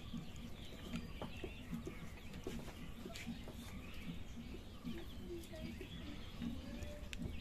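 Birds calling faintly in the background, a scatter of short, repeated calls, with small clicks from two people eating rice and curry by hand off their plates.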